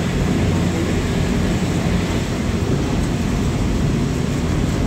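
Steady rumble of a road vehicle driving, heard from inside: engine drone and tyre and road noise, with a wet road in the rain.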